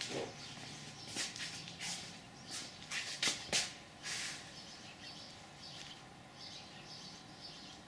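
Faint scattered clicks and shuffles, most of them in the first half, with faint high bird-like chirps in the background later on.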